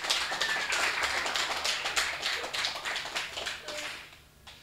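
Audience applauding, the clapping fading out about four seconds in.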